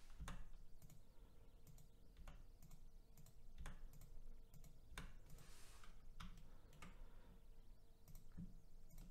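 Faint, irregular clicks of a computer keyboard and mouse being used.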